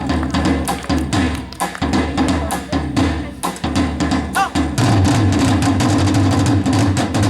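Korean traditional percussion ensemble playing drums in a fast beat of dense strikes, which about five seconds in becomes a continuous loud roll held to the end.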